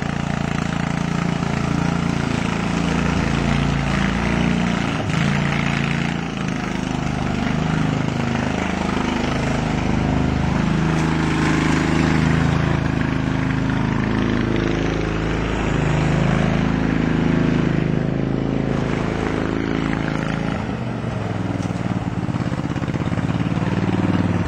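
Single-cylinder Briggs & Stratton 14.5 hp overhead-valve engine of a Murray lawn tractor running loud as the tractor drives, its engine note rising and falling.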